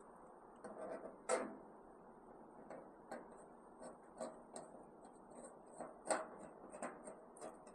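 Faint, irregular light clicks and taps, one or two a second, of a screwdriver and screws as a side handle is fastened onto the smoker.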